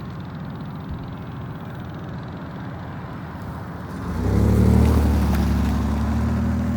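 Diesel freight locomotives working hard under heavy load on an uphill grade: a steady low engine drone that jumps louder and fuller about four seconds in.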